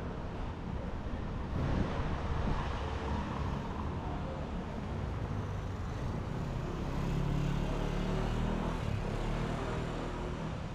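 City street traffic: cars going past, with one vehicle's engine loudest about seven to nine seconds in, over a steady low rumble.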